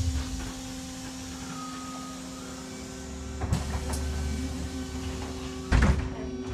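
Electric trolleybus standing at a stop on battery power, its electrical equipment giving a steady hum. A low rumble with a few clicks starts about halfway through, and a loud knock comes near the end.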